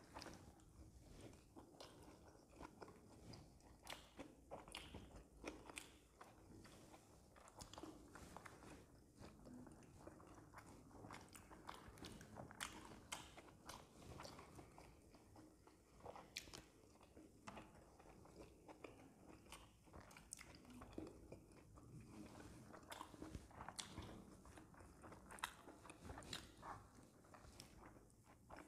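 Two people eating momos (dumplings): faint biting and chewing, with many small irregular clicks throughout.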